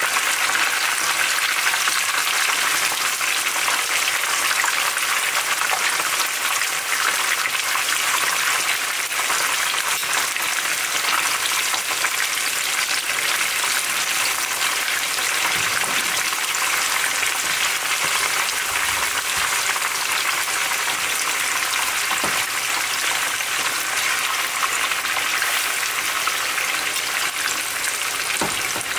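Chicken pieces frying in hot oil in a pan, a steady, dense sizzle.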